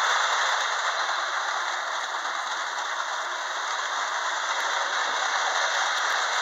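Lionel 8203 Penn steamer toy electric locomotive running on its track while pulling seven cars, its motor and wheels making a steady rattling run.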